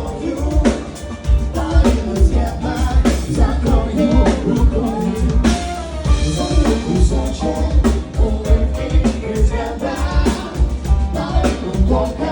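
Live cover band playing an upbeat song: a singer over drum kit, bass and other instruments with a steady beat.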